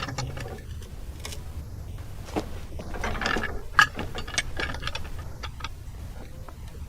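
A log being rolled onto a portable sawmill's bed: irregular knocks, scrapes and metallic clicks, with one sharp click about halfway through.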